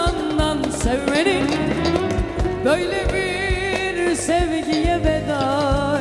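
Turkish arabesk music playing: a wavering, ornamented melody line over a steady percussion beat.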